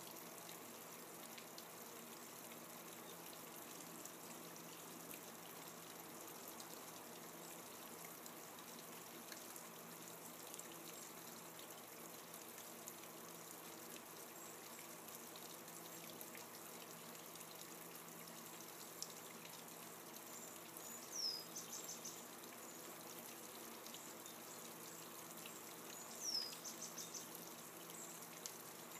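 Water from a rotating bubble fountain running steadily and faintly. A bird calls twice in the second half, each time a quick falling note followed by a rapid trill.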